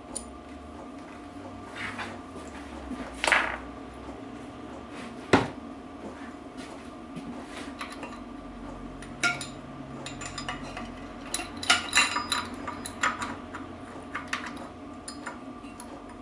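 Steel parts of a homemade bearing puller (a plate, a washer and a nut on a bolt) clinking and knocking as they are handled and fitted. There are a few single sharp knocks in the first half, then a quicker run of clinks in the second half, over a faint steady hum.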